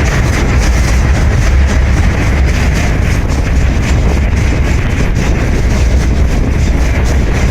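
Loud, steady rumble of a moving freight train heard from aboard it: wheels running on the rails, with a heavy low drone.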